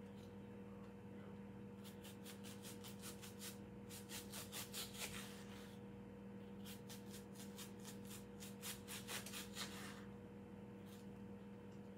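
Kitchen knife slicing an onion, in three runs of quick strokes, several a second, over a faint steady hum.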